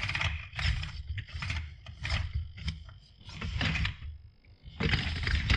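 Hobby servos driving the tracks of a large 3D-printed PLA excavator, running in uneven bursts every half second to a second over a steady low hum. The servos lack the power to move the heavy machine, which almost can't move.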